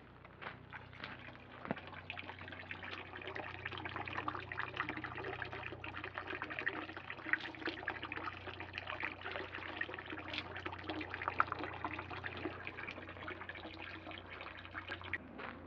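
Water running from a dragon-shaped spout into the stone basin of a temple purification fountain, a steady trickle with small splashes. It grows louder about two seconds in.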